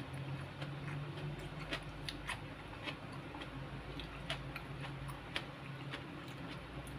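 Close-mouthed eating sounds: a person chewing a hand-fed mouthful of pecel sweet potato leaves, with irregular sharp lip-smacks and clicks about one or two a second over a steady low hum.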